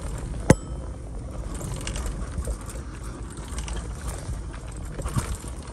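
Bicycle being ridden over a dirt forest path: a steady low rumble of tyres and rattling, with scattered small clicks and one sharp metallic click, with a brief ring, about half a second in.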